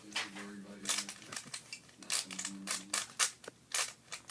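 Rubik's cube layers being turned by hand: a string of irregular plastic clicks and snaps, denser in the second half.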